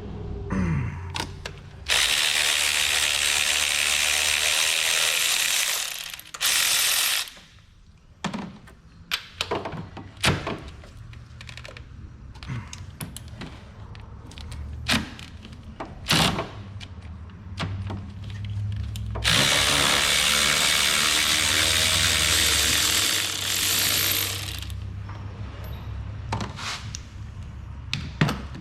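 Power tool spinning off the engine mount nuts in two runs of about four seconds, one near the start and one about two-thirds through, with a short burst between. Sharp clicks and clanks of socket and metal parts being handled fill the gaps.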